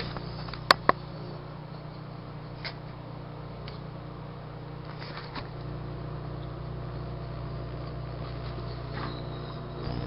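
Microwave oven running with a steady hum while a light bulb is being microwaved. Two sharp clicks come less than a second in, and a few faint ticks are scattered after them.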